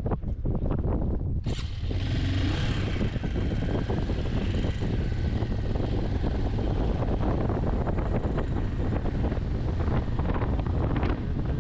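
Wind buffeting the microphone on a moving motorcycle, a steady rumbling rush over the running engine, turning hissier about a second and a half in.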